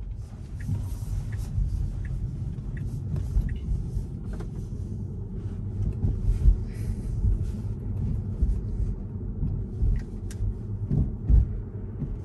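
Steady road and tyre rumble heard inside the cabin of a Tesla electric car driving along a city street, with a few low thumps. Faint regular ticking, about one tick every two-thirds of a second, runs through the first few seconds.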